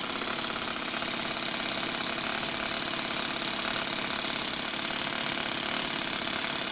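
Toyan FS-S100 single-cylinder four-stroke overhead-cam nitro engine idling steadily on its own with a fast, even chatter. The brushless starter motor has cut out, and the engine keeps running on its glow ignition.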